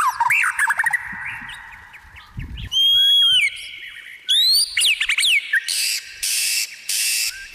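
Birds singing and calling: quick whistled notes that sweep up and down, a longer held whistle about three seconds in, and several loud, harsh calls near the end.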